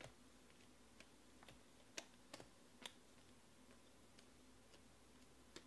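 Faint clicks and snaps of a stack of glossy chrome trading cards being flipped through by hand, one card slid off the stack at a time, with the sharpest clicks about two to three seconds in.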